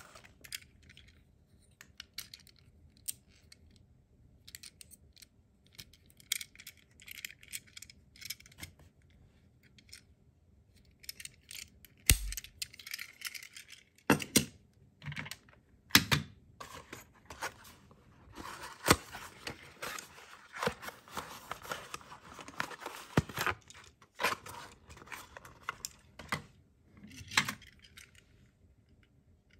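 Thin plastic wrapping crinkling and rustling in bursts as small die-cast toy ambulances are unwrapped and handled, with scattered sharp clicks and taps of the metal-and-plastic toys.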